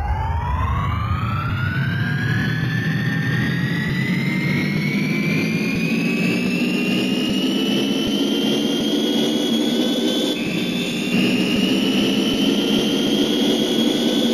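Jet turbine engine sound effect spooling up: a whine rises steeply over the first couple of seconds, then levels off into a steady high whine over a deep rumble, shifting slightly higher about ten seconds in.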